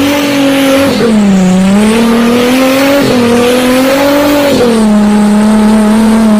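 A Jeep Cherokee's engine running loud at high revs as it ploughs through deep mud, its pitch rising and falling with the load, with a rushing hiss over it.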